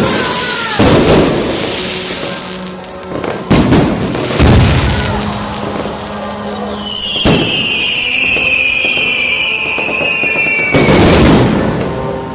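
Aerial fireworks bursting with about five loud booms. From about seven seconds in, a long shrill whistle sounds, falling slowly in pitch, and another boom cuts it off.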